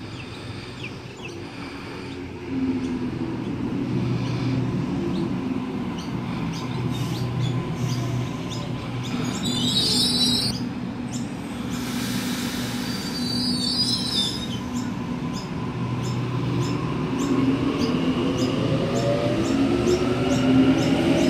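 Double-deck electric passenger train running along the platform with a steady low rumble of motors and wheels. Brief high wheel squeals come about ten and thirteen seconds in, and a whine rises in pitch near the end.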